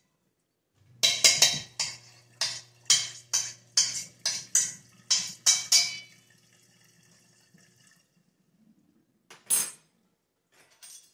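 Metal spoon clinking and scraping against a stainless steel mixing bowl as ground venison is stirred: about a dozen quick strikes, roughly three a second, then a pause and a single strike near the end.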